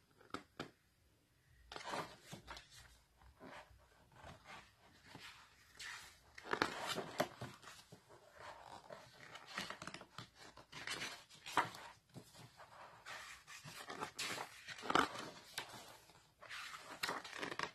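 Glossy pages of a thick photobook being turned and handled by hand: irregular paper swishes and rustles, the strongest a little before the middle and again near the end.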